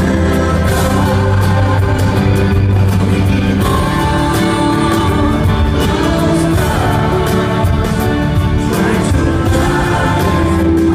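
A male singer singing live into a microphone over musical backing, recorded from the audience in a concert hall.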